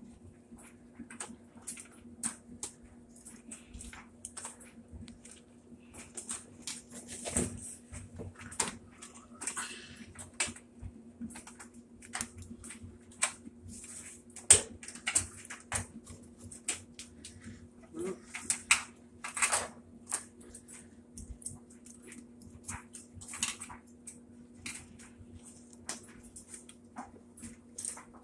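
Irregular clicks, knocks and light clatter of plastic and metal parts being handled inside a Whirlpool top-load washer as its suspension rods are worked on by hand, over a steady low hum. A few sharper knocks stand out, about seven seconds in and again around fourteen and nineteen seconds.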